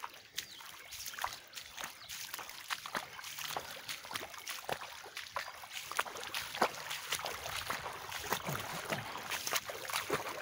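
Footsteps wading through shallow floodwater: irregular splashes and sloshes over a steady trickle of running water.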